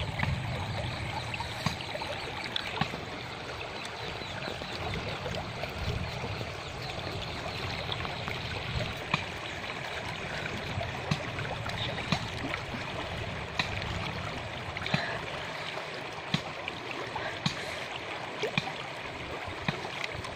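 Shallow river running over rocks, a steady babbling, with scattered small clicks and taps over it.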